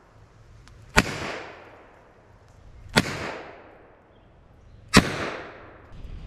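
Three revolver shots fired about two seconds apart. Each is a sharp crack followed by an echo that dies away.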